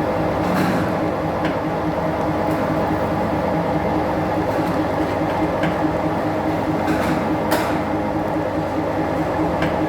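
Industrial machinery running with a steady hum and a few faint clicks.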